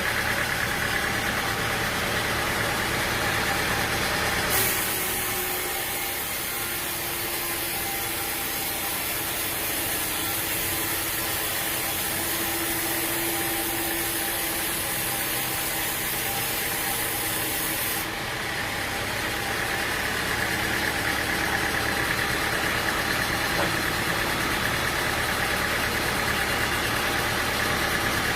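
Sawmill machinery running steadily with an engine-like drone. About four and a half seconds in the sound changes abruptly to a hissier one with a steady hum, and about eighteen seconds in it switches back just as abruptly.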